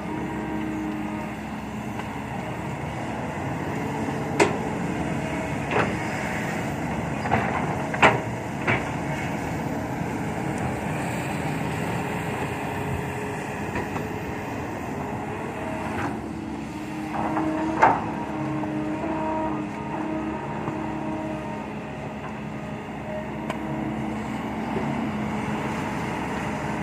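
Heavy diesel dump truck engines running steadily, with a few sharp metallic knocks, the loudest about 8 seconds and 18 seconds in.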